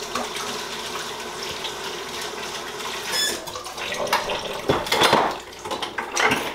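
Kitchen sink faucet running, water splashing into the sink. Several knocks and clatters of kitchenware on the counter come in the last couple of seconds.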